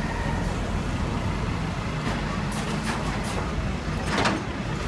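Flatbed recovery truck's diesel engine idling with a steady low rumble. A few short knocks come between about two and three seconds in, and a louder short burst of noise comes about four seconds in.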